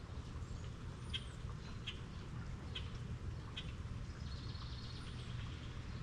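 Steady rain with a low rumble underneath, and a bird chirping in short calls about once a second.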